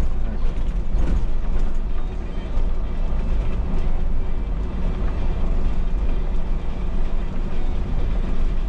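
Inside the driver's cab of a MAN NL283 Lion's City city bus under way: a steady low rumble of the diesel engine and the road, with a few light clicks.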